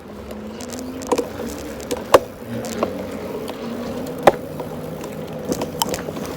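Electric bike's geared hub motor humming steadily as it rides, its pitch drifting slightly. Several sharp knocks and rattles from the bike and its handlebar mount come through, the loudest about a second, two seconds and four seconds in.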